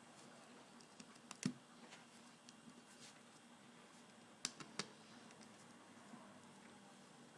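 Faint, sparse clicks and taps of a small Torx screwdriver and its screws against the plastic-and-metal casing of a Nokia N86 mobile phone as the case screws are worked out. A few sharp ticks come about a second and a half in, and a quick cluster of three comes near the five-second mark.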